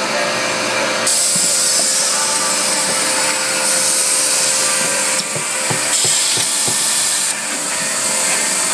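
Vinyl record pressing machinery running: a steady mechanical hum with compressed-air hiss from the pneumatic handling arm and its valves. The hiss steps up about a second in, drops out briefly twice later and comes back, with a few light clicks.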